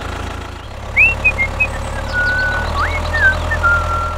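Tractor engine running at a steady low idle-like hum, with short high whistled chirps and glides over it from about a second in, including two longer held whistle notes.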